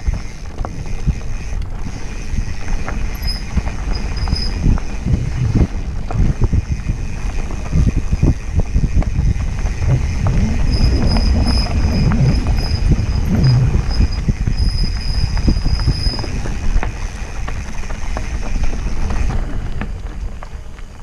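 Mountain bike riding along a dirt forest singletrack: tyres rolling over the packed dirt with the bike rattling and clicking over roots and stones, and wind buffeting the microphone. It stays loud and eases off near the end.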